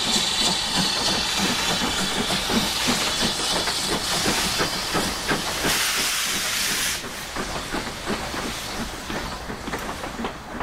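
Two steam locomotives, BR Standard Class 4MT tank No. 80080 and LMS Coronation Class Pacific No. 6233, pulling a passenger train past, with a loud hiss of steam escaping around the cylinders over the knocking of wheels on rail joints. The hiss cuts off about seven seconds in, leaving the clatter of the coaches rolling by.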